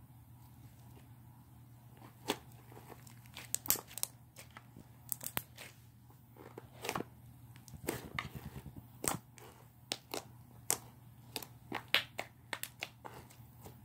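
Slime being kneaded and squished by hand, giving irregular sharp clicks and pops over a steady low hum.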